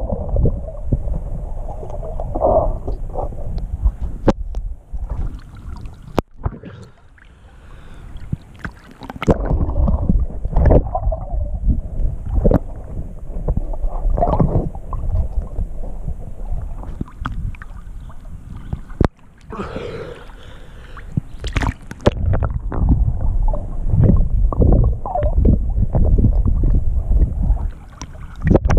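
Muffled underwater sound from a camera held under river water: irregular low rumbling of moving water and handling, with a few sharp knocks and clicks against the camera.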